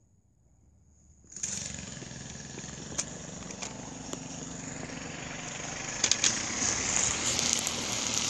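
A motor running, starting abruptly about a second in and growing louder toward the end, with a few sharp clicks.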